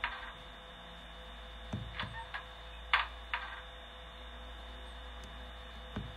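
Loudspeaker of a Piko BR 240 H0 model locomotive's sound decoder playing its engine-room door sound over a steady electric hum: a cluster of sharp clicks and knocks between about two and three and a half seconds in, and one more near the end.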